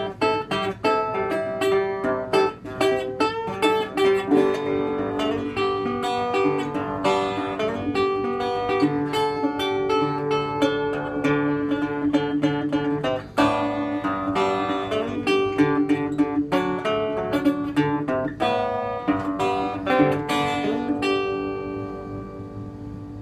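National Style O single-cone resonator guitar fingerpicked in American primitive style, a melody of bright, ringing notes over a steady bass. Near the end the playing stops and the last notes ring and die away.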